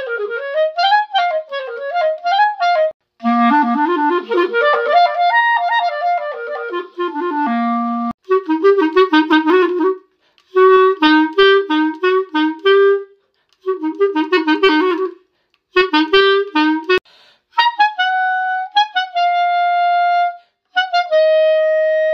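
Solo clarinet playing a string of short excerpts separated by brief silences: first a wavering melody, then a fast run climbing upward. Next comes the same short phrase played over and over, about four times in a row, as a perfectionist going back over a passage. Near the end come long held notes.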